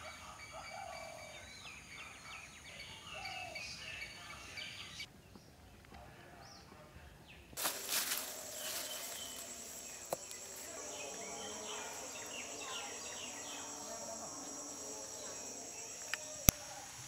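Rural outdoor ambience: many small birds chirping and calling, then, after a cut, a steady high-pitched insect drone under more bird calls. A sharp click near the end is the loudest sound.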